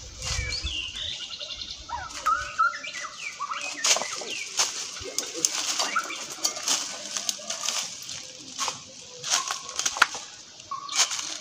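Rustling and crackling of dry leaves and bamboo brush underfoot and against the body, in irregular crunches. Birds chirp in short calls during the first couple of seconds.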